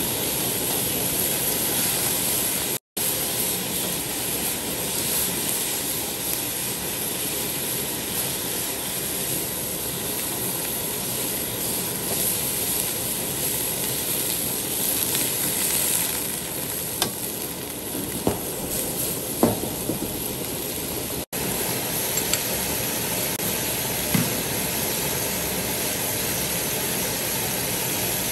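Fish frying in hot oil: a steady sizzle, with a few sharp clicks in the second half. The sound breaks off for an instant twice.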